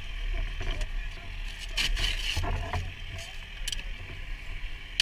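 Fire engine running with a steady low hum, while equipment at its rear step is handled: a cluster of knocks and scrapes about two seconds in and a sharp click near the end.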